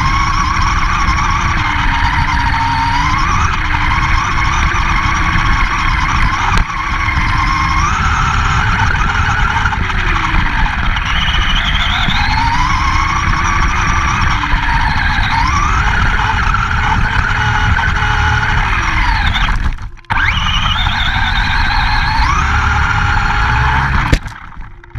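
RC monster truck's motor and drivetrain whining, the pitch rising and falling with the throttle, over a rough rush of tyres and ground heard from a camera mounted on the truck. The sound cuts out briefly twice, the second time just after a knock as the truck tumbles over near the end.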